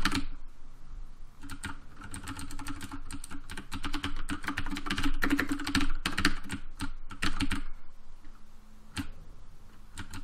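Typing on a computer keyboard in quick runs of keystrokes, thinning to a few single key presses near the end.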